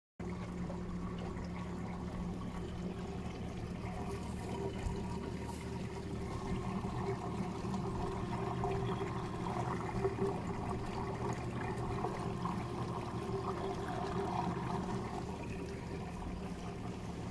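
Electric outboard with a brushless outrunner motor running the boat under way: a steady motor hum under a gurgling, water-churning sound. The gurgle is the propeller sucking in air, drawn in through the gap where the motor wires pass through the motor holder.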